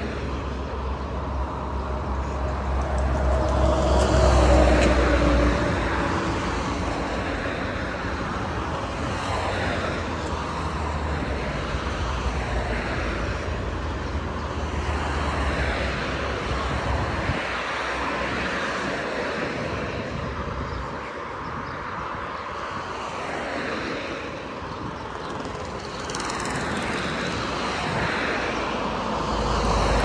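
Road traffic passing on the street alongside, a steady rumble of engines and tyres, loudest about four seconds in as one vehicle goes by, easing after about seventeen seconds and rising again near the end as another approaches.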